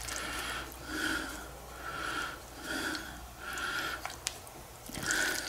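A person breathing heavily through the nose, short noisy breaths about once a second, with a single light click about four seconds in.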